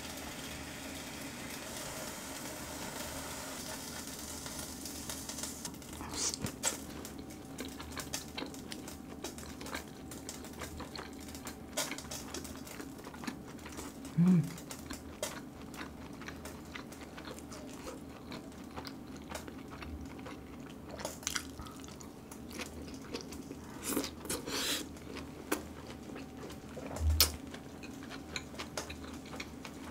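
Tongs and chopsticks clicking and tapping against a grill plate and metal trays as raw marinated duck ribs are laid on the grill and eaten, with a faint sizzle in the first few seconds. Close-up chewing and eating sounds and a few louder knocks follow.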